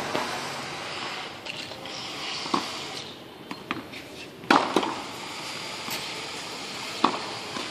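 Tennis ball being hit with rackets and bouncing on a hard court: a few sharp pops, the loudest a close pair a little past halfway, over steady background noise.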